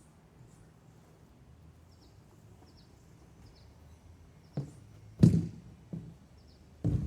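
A few dull thumps and knocks, the loudest about five seconds in, over faint bird chirps outdoors.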